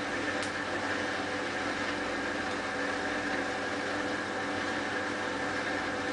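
Hotpoint Ultima WT960 washing machine running with a steady hum and whine, its drum turning at an even speed during the spin after the pre-rinse.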